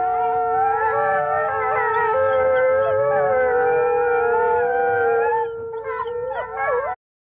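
A pack of wolves howling in chorus, several long howls overlapping at different pitches. Near the end the howls break into shorter wavering calls, then cut off suddenly.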